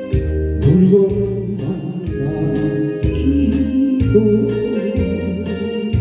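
A man singing a Korean ballad into a microphone over instrumental accompaniment with a steady beat of bass and drums.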